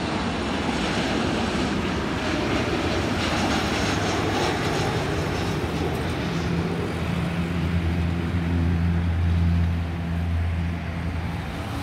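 Jet noise of a Boeing 737-800 passing low overhead on final approach, fading over the first half. From about six seconds in, a truck engine's steady low hum takes over, loudest around nine seconds in.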